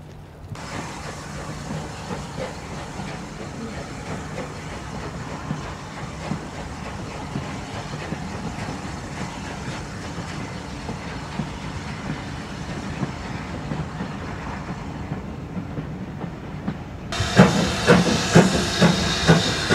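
Steam locomotive working, heard as a steady hiss and low rumble of exhaust and steam. Near the end it comes in much louder and closer, with sharp exhaust beats at about three a second as it pulls away.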